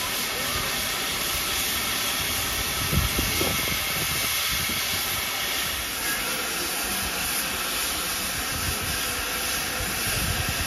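Steady hiss of steam from a standing GWR Manor class 4-6-0 steam locomotive, 7812 'Erlestoke Manor', with a few brief low bumps about three seconds in.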